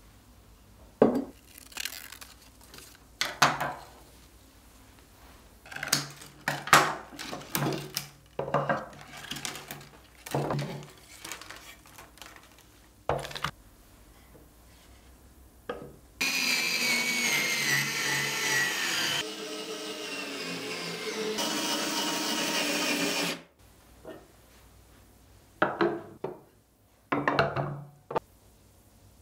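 Pine boards of a flat-pack wooden crate knocking and clattering as they are handled and fitted together. Then an electric screwdriver runs steadily for about seven seconds in three joined stretches, with a slightly falling whine, driving in the screws. Near the end come a few more knocks as things are set down in the finished crate.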